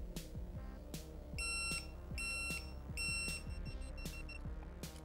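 Digital torque wrench beeping as a brake-rotor bolt is tightened to its set torque of 19 Nm: three even high beeps, then a quick run of short beeps as the target is reached.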